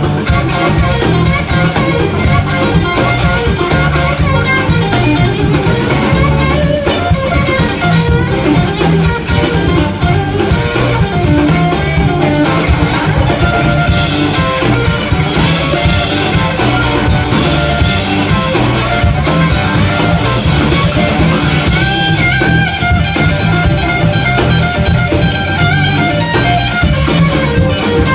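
Live blues band playing an instrumental break with guitar over bass and drum kit, with cymbal crashes about halfway through.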